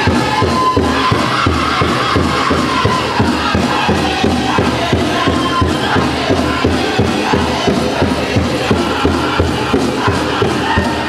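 Powwow drum group: a big drum struck in a steady, fast beat by several drummers, with high-pitched group singing over it.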